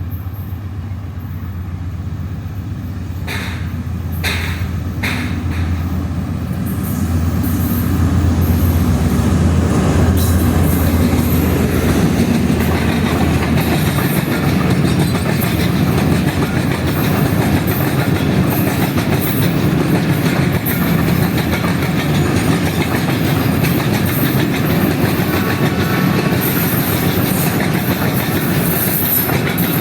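Freight train of oil tank wagons passing: the locomotive's low engine hum grows louder over the first eight seconds or so, then the wagons roll by with a steady clickety-clack of wheels on the rails.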